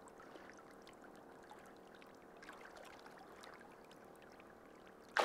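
Faint trickling and lapping of shallow lake water around hands holding a mirror carp under the surface for release, then a sudden louder splash near the end.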